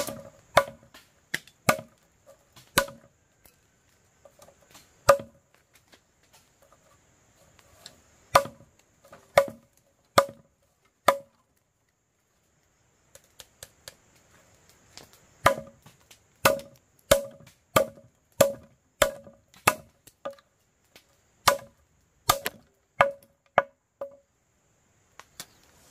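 Chopping with a blade: about twenty sharp strokes, each with a short ring, at roughly one a second. They stop for a few seconds in the middle, then come back a little faster.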